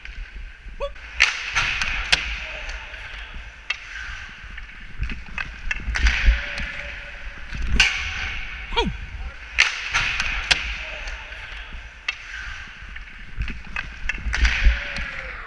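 Ice skate blades hissing and scraping over rink ice, broken by many sharp clacks of a hockey stick striking the puck and the ice. A low wind rumble sits underneath.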